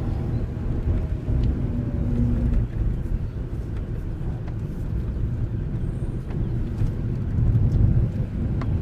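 A Mazda car's engine and tyre noise on broken asphalt, heard from inside the cabin: a steady low rumble with a few faint clicks.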